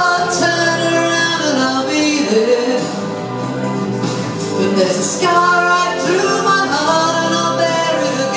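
A woman singing a cover song into a handheld microphone over an instrumental backing.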